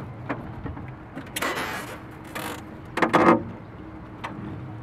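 Handling noise from cardboard firework mortar racks and boxes on a wooden platform: short scraping rustles, then a louder knock a little after halfway, with scattered clicks over a faint steady hum.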